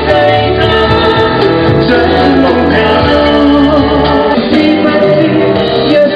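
Live concert music: a man and a woman singing over band accompaniment.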